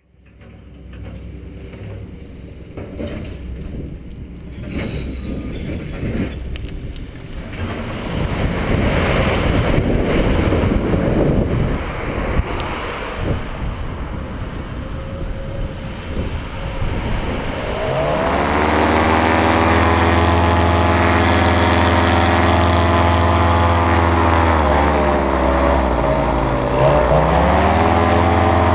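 A rushing noise with a low rumble for the first eighteen seconds or so. Then the paratrike's two-stroke Simonini paramotor engine runs up to a steady, loud high-power drone for the takeoff roll, dipping in pitch briefly near the end before climbing back.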